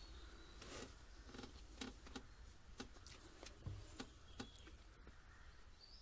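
Faint, irregular light clicks and taps of small parts and hand tools being handled during a gear-shift bias plate refit.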